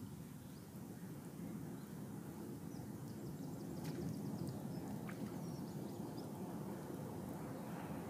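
Steady low rumble of wind on the microphone at a rocky shore, with a few faint high ticks and chirps about halfway through.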